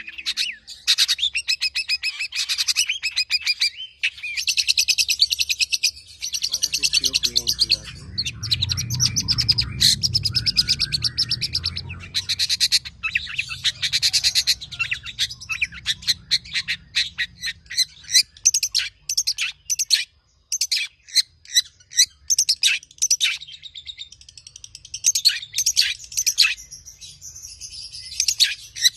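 Long-tailed shrike singing a fast, varied song of rapid-fire chattering phrases and mimicked calls, a brief pause about twenty seconds in. A low rumble sits under the song from about six to thirteen seconds in.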